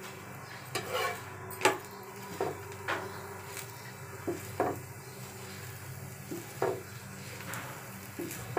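A steel spatula scrapes and taps irregularly against a non-stick frying pan as a methi paratha is pressed and turned. A low sizzle of the oiled flatbread frying runs underneath.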